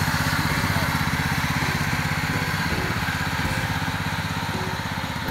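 Simplicity riding lawn tractor's small engine running steadily as it drives off, its even firing pulse slowly fading as it pulls away.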